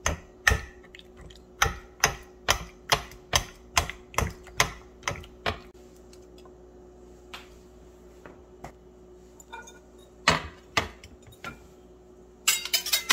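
Metal fork stabbing raw chicken breasts in a ceramic baking dish, its tines clicking against the dish about two or three times a second for the first five seconds or so. Then a few scattered, louder knocks and a short clatter near the end as the dishes are handled, over a faint steady hum.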